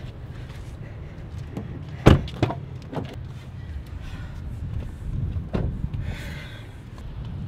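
Knocks and thumps from a car door and seat while sneakers and a water bottle are handled and picked up off the seat. The sharpest knock comes about two seconds in, with a few lighter ones after it, over a steady low rumble.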